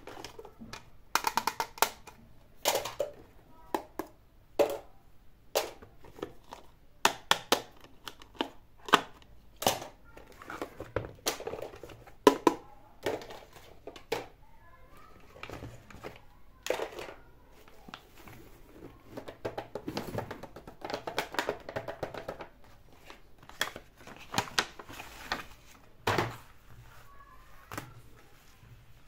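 Hard plastic toys clicking and knocking as they are picked up, handled and set down one after another, with some short rattles and rustling.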